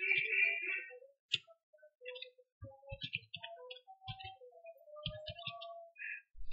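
Computer keyboard being typed on: faint, irregular clicks in small clusters.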